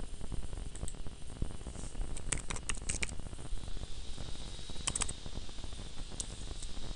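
Computer keyboard keystrokes: a quick run of about half a dozen key clicks about two seconds in, then a couple more clicks near five seconds and one more after six, over steady low background noise.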